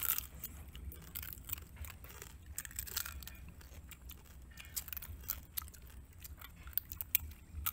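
Close-up chewing and crunching of cooked crab, the shell cracking in many short, sharp clicks and crackles.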